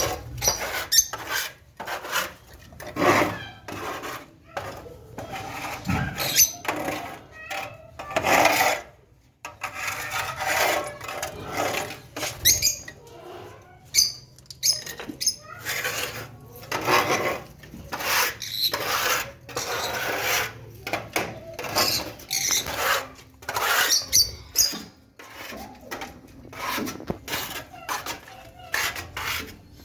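Lovebirds chattering, with many short, sharp calls and squeaks overlapping one another.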